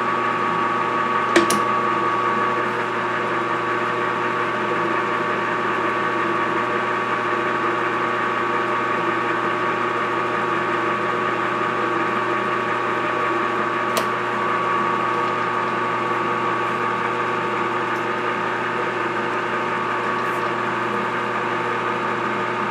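Metal lathe running steadily with a steady whine from its motor and gears during a thread-cutting pass on a stainless steel shaft. Two sharp clicks, one about a second in and one about midway.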